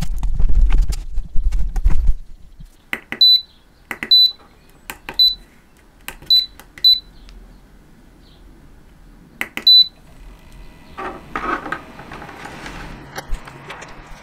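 Handling noise for about two seconds as the cell and its wire lug are moved about by hand, then about six button presses on the bench test gear, each a click followed by a short high-pitched beep, spread over several seconds. A brief rushing noise follows near the end.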